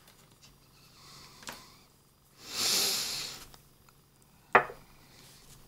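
A soft hiss of air lasting about a second, midway, then a sharp light click near the end as a small glass essential-oil bottle is set down on the wooden desk.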